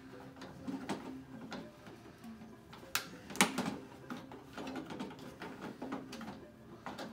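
Hard plastic parts clicking and knocking as small pieces are fitted onto the plastic hull of a HasLab Jabba's sail barge toy, a scattered series of clicks with the sharpest pair about three seconds in.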